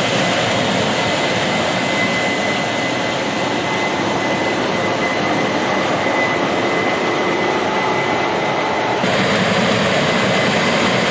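Heavy farm machinery running steadily, a dense mechanical rumble with a steady high whine over it; the sound changes abruptly about nine seconds in.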